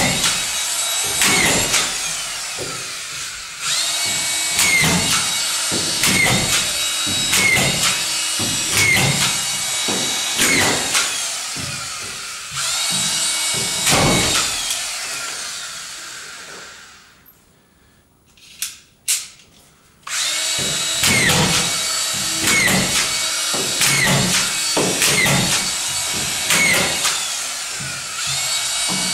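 Cordless power screwdriver driving screws into plasterboard, about one screw every second and a half, its motor whine rising and falling with each. It goes quiet for a few seconds about two-thirds of the way through, with a couple of short sharp sounds in the pause, then the screwing resumes at the same pace.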